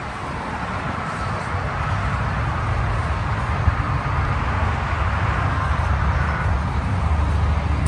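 A car engine running nearby: a steady low rumble that grows a little louder over the seconds.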